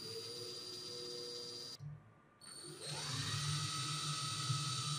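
Cordless drill motor: a steady whir for the first couple of seconds, a short break, then the motor spins up, rising in pitch about two and a half seconds in, and runs steadily with a blind rivet clamped in its chuck.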